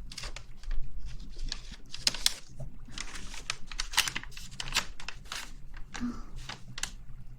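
Close-miked ASMR rustling: irregular crisp clicks and crinkling noises from objects handled right at the microphone, a few to several a second.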